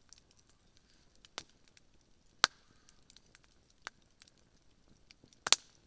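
Wood campfire crackling, with sharp pops standing out: a loud one about two and a half seconds in and a louder double pop near the end.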